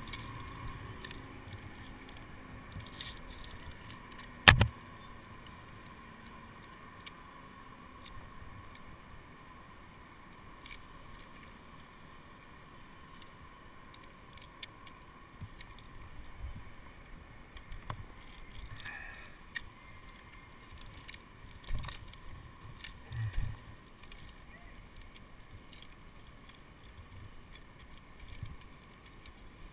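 Tree-climbing gear handled close to a helmet camera: rope and steel-core lanyards rubbing on pine bark and metal hardware clinking. There is one sharp loud click about four and a half seconds in and a few knocks past the twenty-second mark, over a faint steady hum.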